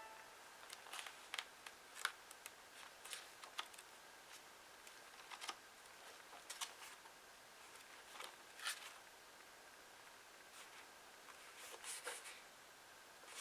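Paper pages of an old book being handled and turned: soft, scattered paper rustles and flicks, faint, coming every second or so.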